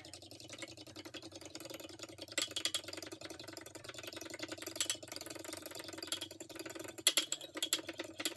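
A spoon whisking cake batter briskly in a dish, a fast run of clinking and scraping against the sides, with a few louder bursts of strokes.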